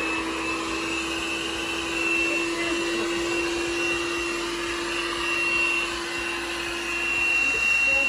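Tesvor M1 robot vacuum cleaner running: a steady motor and suction hum with a high whine that swells and fades.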